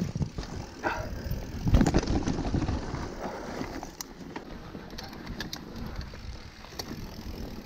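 Mountain bike riding fast down a dirt singletrack: tyres rumbling over the dirt and the bike rattling, with sharp knocks from bumps, the heaviest about two seconds in.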